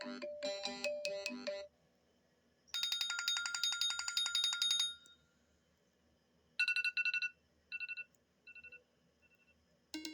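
iPad mini 4 built-in ringtones previewed one after another. A melodic tone ends about two seconds in, a fast pulsing high-pitched tone plays from about three to five seconds, and then a short beep figure repeats three times, fainter each time. A new ringtone with a rising run of notes starts at the very end.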